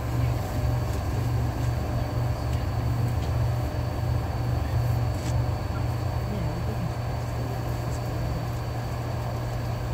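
Inside the cabin of a LiAZ-6213.22 articulated diesel bus under way: a steady low engine drone with road noise and a faint constant high whine.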